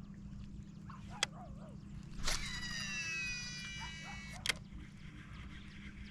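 A cast with a Shimano DC baitcasting reel: a sharp snap, then the reel's electronic brake whines as the spool spins out, falling slowly in pitch for about two seconds before it stops with a click. A single sharp click comes about a second earlier, and a steady low rumble runs underneath.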